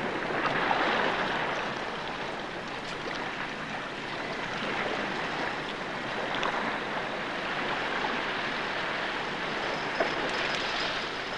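Steady rushing seaside ambience of wind and surf, with a small click about ten seconds in.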